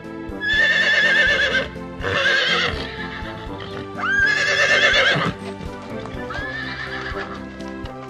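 A horse whinnying four times, each a quavering neigh about a second long, over background music.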